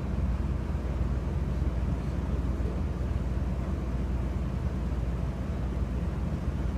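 Wind buffeting a phone microphone on an exposed rooftop ahead of a thunderstorm: a steady low rumble without pauses.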